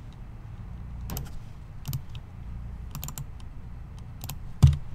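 Scattered computer mouse and keyboard clicks, a few sharp separate clicks over a low steady hum, with one louder click and thump about four and a half seconds in.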